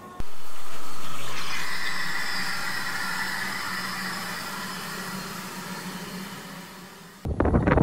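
Steam locomotive Linda blowing off steam: a loud hiss that starts suddenly and slowly fades away.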